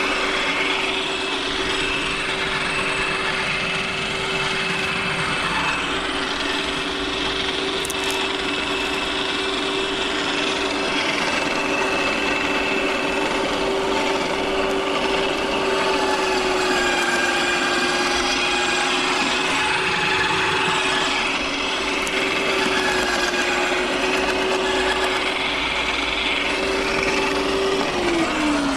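Electric garden shredder running with a steady motor hum, grinding up thin dry branches fed into its hopper; the pitch sags slightly as it takes the load. Near the end the motor is switched off and starts to wind down, its hum falling.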